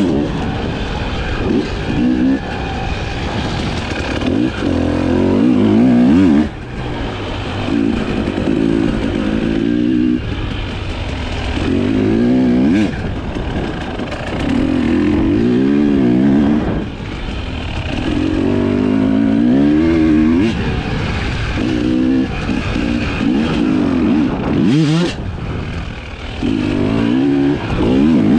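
Husqvarna TE 300i two-stroke single-cylinder enduro engine being ridden hard off-road, revving up and backing off again and again, every two to three seconds, with the throttle snapped shut a couple of times.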